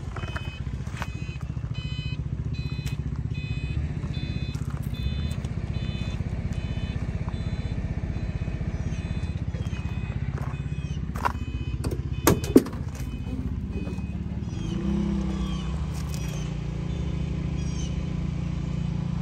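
Pickup truck engine idling steadily, a low even pulsing rumble. A few sharp clicks a little past halfway as the driver's door latch is opened, with birds chirping now and then.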